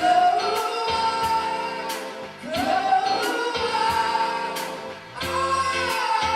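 Music: a song with a singing voice in three phrases over a steady beat.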